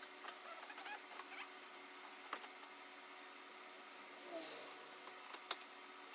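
Plastic cowl panel of a C5 Corvette being handled and pressed into place below the windshield: faint rustling and light clicks of plastic, a sharp click about two seconds in, a brief squeak a little after four seconds, and the loudest snap near the end.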